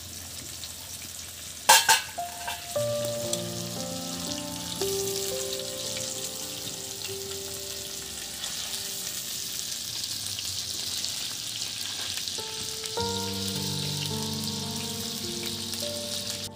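Chicken breast and chopped garlic frying in butter in a pan, sizzling steadily, with one sharp knock a couple of seconds in. Soft background music with held notes comes in about three seconds in.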